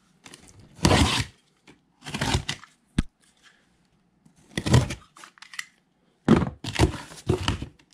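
Box cutter slicing through the packing tape along the top seam of a cardboard box in several short scraping strokes, with a sharp click about three seconds in.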